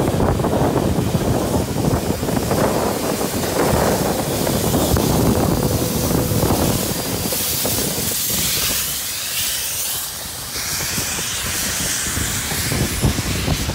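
NSW 32 class steam locomotive 3265 and its carriages rolling past at close range, wheels rumbling on the rails. About seven seconds in, as the engine goes by, a loud hiss of steam comes up and dies away after a few seconds.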